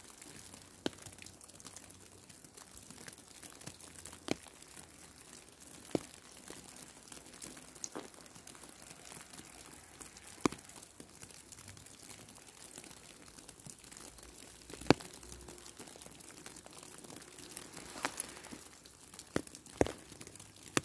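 Falling snow: a faint steady hiss broken by about ten sharp, scattered ticks at irregular intervals.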